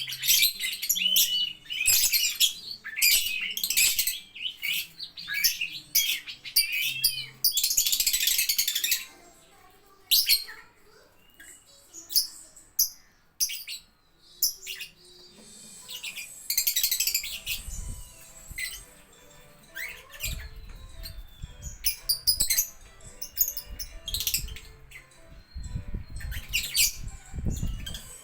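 Lovebirds chirping: dense, rapid high chirps and trills for the first nine seconds or so, then scattered shorter chirps with quieter gaps. Low thumps come in the second half.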